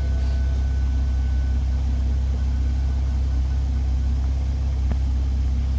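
Toyota A90 Supra engine idling steadily with a low, even exhaust rumble and no revving. There is a faint click near the end.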